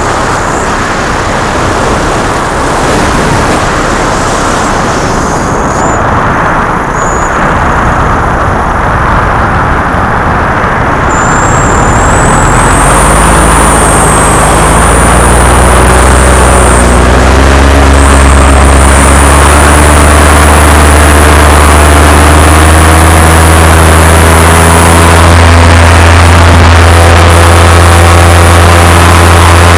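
Paramotor engine and propeller in flight, heard over wind rushing on the microphone. About twelve seconds in the engine is throttled up: its drone rises in pitch for several seconds, then holds steady and loud at high power.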